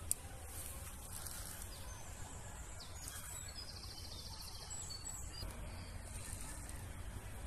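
Pondside outdoor ambience: a steady low rumble, a single sharp click just after the start, and a high-pitched chirping trill from about three to five and a half seconds in.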